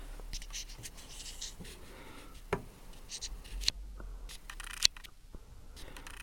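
Metal hand tools being handled in a tool box drawer: light scraping and rubbing, with a few sharp clicks about two and a half, three and a half and five seconds in.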